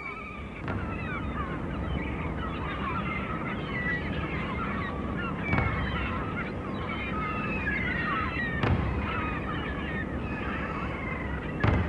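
A flock of birds calling over one another, many short calls at once, over a steady rushing background noise. There are brief low thumps at about five and a half seconds, near nine seconds and near the end.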